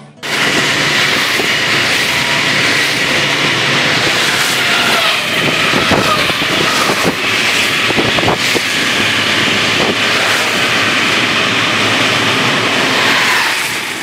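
Loud, steady rushing mechanical noise with a whine running through it and scattered clacks midway. It starts abruptly and fades away near the end.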